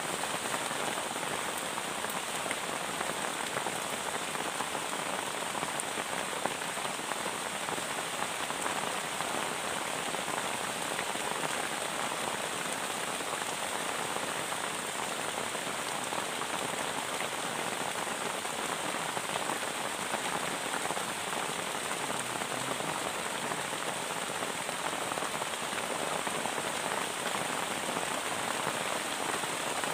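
Heavy rain falling steadily in an even, unbroken downpour.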